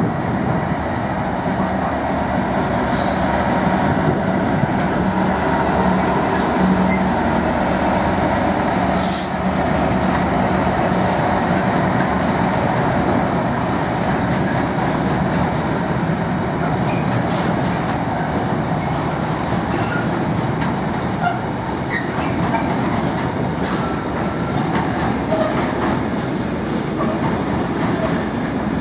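Freightliner Class 66 diesel locomotive, its two-stroke diesel engine running with a steady low note for the first several seconds, then its long train of container flat wagons rolling past with a continuous rumble and clicks over the rail joints.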